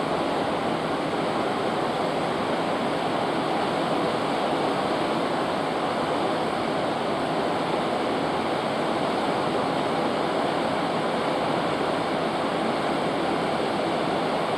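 Steady rush of churning sea water in a cruise ship's wake, seen from the stern.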